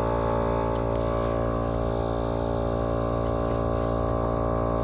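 Battery-powered portable air compressor (tire inflator) running steadily with a buzzing drone while it pumps a car tire up to about 30 psi.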